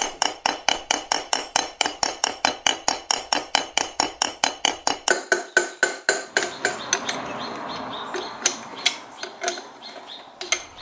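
Metal end cover of a wind-turbine generator being tapped into place with a hammer: quick, even, ringing metal taps, about four a second, that slow after about six seconds to a few scattered strikes.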